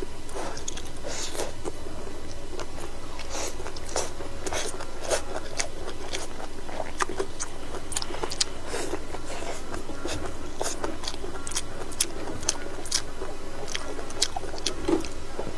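A person chewing and eating, close to the microphone: irregular wet clicks and smacks, a few to several a second, over a steady low hum.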